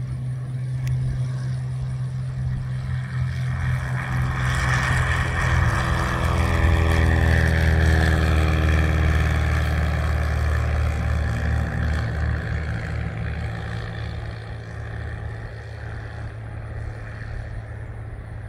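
A light propeller airplane droning past the runway. Its engine grows louder over the first several seconds and sweeps down in pitch as it passes, about seven seconds in, then fades away.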